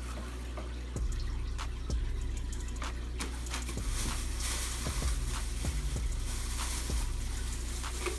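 Plastic bags and packing crinkling and rustling as hands dig through a shipping box's plastic liner, with scattered sharp crackles. A steady low hum runs underneath.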